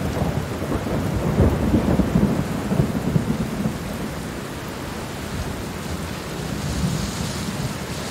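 Steady rain with a low rolling rumble of thunder, heaviest over the first three or four seconds and then easing into steady rain.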